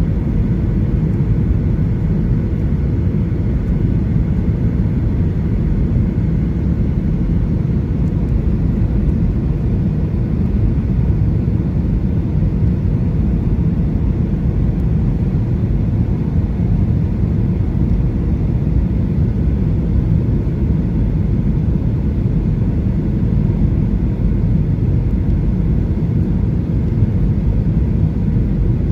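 Steady deep rumble inside the cabin of a Boeing 737-800 on final approach: its CFM56 turbofan engines and the airflow over the wing with flaps extended, with a faint steady whine above it.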